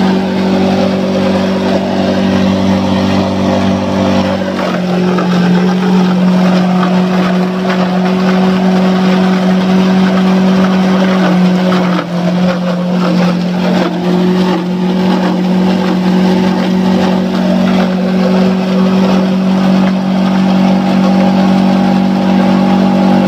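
Electric motor of a homemade wooden tobacco shredder, rated 2800 RPM, running at full speed with a steady hum over a rushing noise as dry tobacco is fed through and chopped. The pitch holds steady, with a short dip about twelve seconds in.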